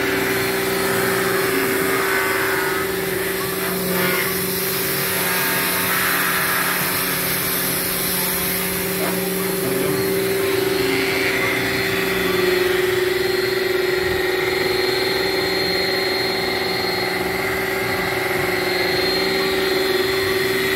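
A motor running steadily with a constant, unchanging hum.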